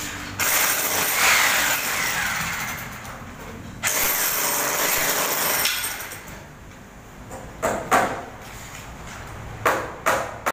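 Tool noise from work overhead: two long stretches of harsh scraping, about three seconds and then about two seconds long, followed by a few short scrapes near the end.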